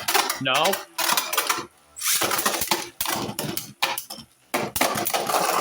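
3D-printed Beyblade spinning tops clashing and clattering in a plastic stadium: rapid, irregular clicks and knocks, with a couple of brief lulls.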